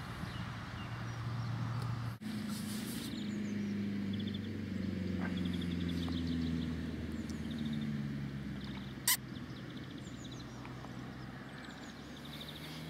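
A Weihrauch HW100 PCP air rifle fires once, a single sharp crack about nine seconds in. Birds chirp and whistle, and a low wavering drone hangs in the background.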